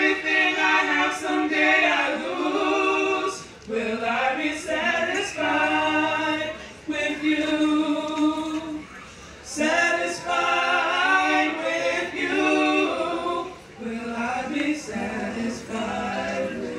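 A small mixed group of men and women singing in harmony, with no instruments clearly heard. Their phrases are sung on long held notes with brief breaks between them.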